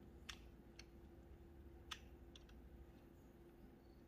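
Near silence: a faint room hum with a handful of scattered, faint computer keyboard clicks.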